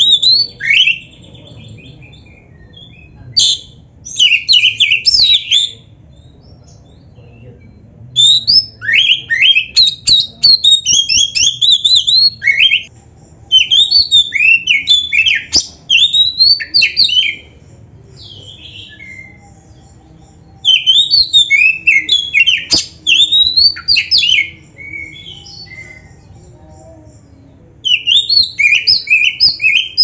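Oriental magpie-robin singing loud phrases of rapid, varied whistled and chattering notes. The song comes in bursts of one to five seconds, with short pauses between them.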